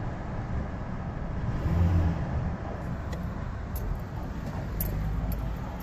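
Car cabin noise while driving in slow highway traffic: a steady low engine and road rumble, with a low hum swelling briefly about two seconds in.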